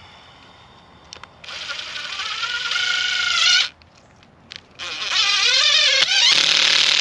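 Cordless drill driving screws: two runs of about two seconds each, its motor whine rising and falling in pitch as the screw takes load.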